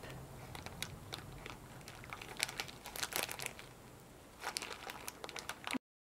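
Plastic zip-top bag crinkling in the hands as fiber-plaster slurry is squeezed out through a cut corner. Soft scattered crinkles, busiest about halfway through and again near the end, then the sound cuts off suddenly.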